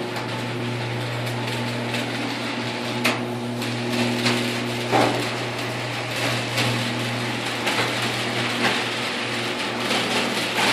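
Genie Pro screw-drive garage door opener running the door through its travel: a steady motor hum with the screw drive and door rattling along, and a couple of sharp knocks about three and five seconds in.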